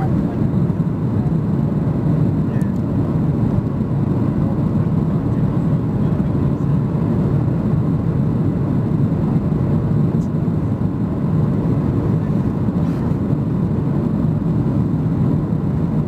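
Cabin noise inside a Boeing 737-800 on approach with flaps extended: a steady low roar of airflow and its CFM56-7B engines.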